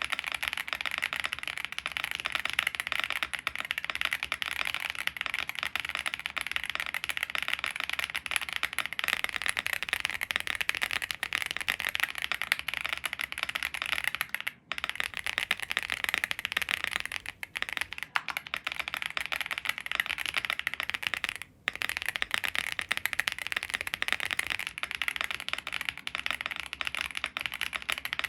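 Continuous fast typing on a WIND X98 full-size custom mechanical keyboard with lubed Boba U4T tactile switches, a POM plate and case foam, giving a dense stream of muted, marbly keystrokes. The typing stops briefly a couple of times in the middle.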